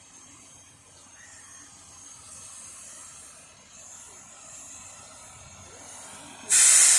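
Compressed air let out with a sudden loud hiss about six and a half seconds in, over a faint steady hiss of site noise.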